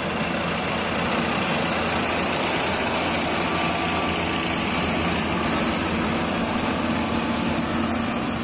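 Combine harvester's diesel engine running steadily, with a steady high hiss over its low drone.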